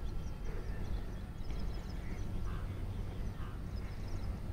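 Wild birds chirping and calling in short, scattered notes over a steady low rumble.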